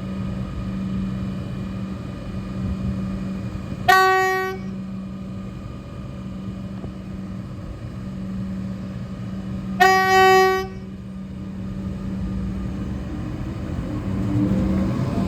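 Comeng electric train's low-note horn sounded twice: two short single-pitch blasts about six seconds apart, the second slightly longer, over a steady hum from the train. Near the end a rising whine sets in as the train's traction motors wind up pulling away.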